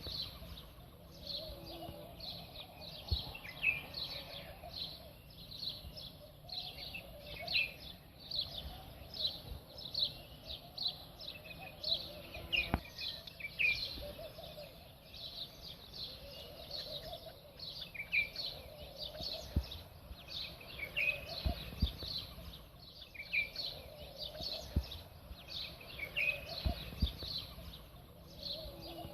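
Many small birds chirping rapidly and continuously, over a steady high hiss, with a few soft knocks.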